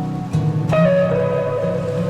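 Background music with plucked guitar notes; a new, brighter note comes in about two-thirds of a second in and rings on.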